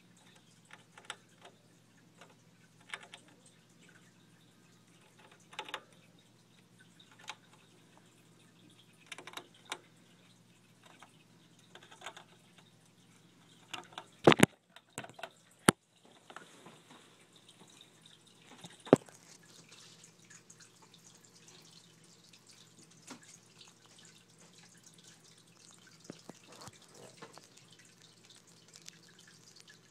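Scattered light clicks and scratching from a dwarf hamster moving about in wood-shaving bedding and a plastic cage tube, with a few louder sharp clicks about halfway through.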